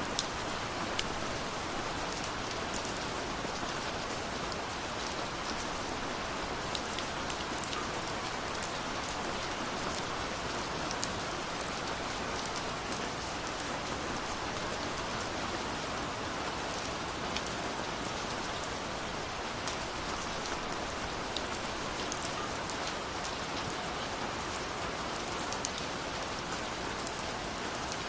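Steady rain falling, a constant hiss with individual drops ticking sharply here and there.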